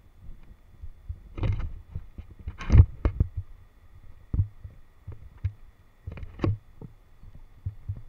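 Irregular knocks and thumps from an action camera being jostled as it moves, over a low rumble. The loudest knocks fall about one and a half, three and six seconds in. A faint steady high whine runs underneath.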